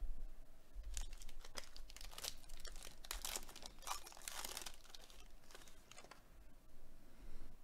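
Foil wrapper of a Panini Contenders baseball card pack crinkling and tearing as it is ripped open by hand. The crackling is densest in the middle and thins out near the end.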